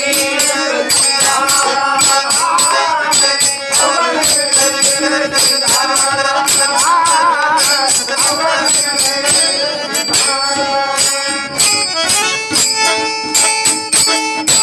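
Marathi devotional folk music: fast, even jingling percussion under a steady held drone, with a wavering melody line that comes and goes through the first half.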